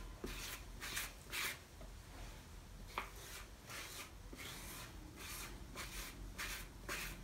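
Hand rubbing and pressing a soft clay slab down into a wooden slump mold, making faint, irregular rubbing strokes about two a second as the clay is pushed and stretched against the mold.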